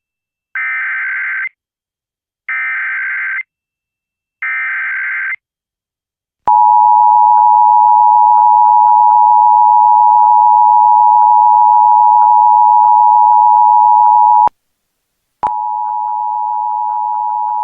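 Emergency Alert System tones: three short bursts of SAME header data, about a second each, then the steady two-tone attention signal for about eight seconds. It cuts off briefly and comes back quieter near the end.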